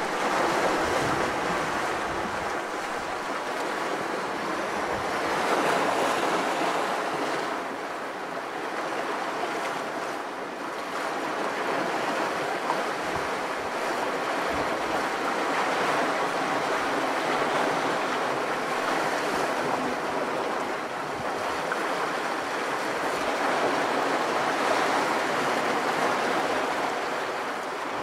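Sea waves washing in and breaking over shoreline rocks: a continuous rush of surf that swells and eases every few seconds.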